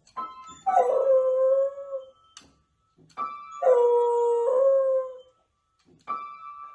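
A dog howling along with music: each time a steady musical note sounds, the dog joins in with a long howl, twice, and a third note begins near the end.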